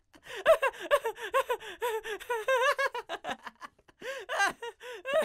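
A man laughing hard in quick, high-pitched bursts, with a brief pause about three and a half seconds in before the laughter starts again.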